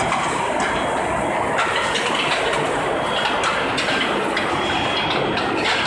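A steel ball hot-rolling production line running: a steady machine noise with frequent irregular clanks and clicks as the steel balls travel along the chutes and into the rotating drum.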